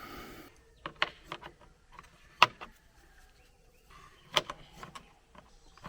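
A few scattered sharp clicks and taps as a dryer soffit vent is handled, the loudest about halfway through.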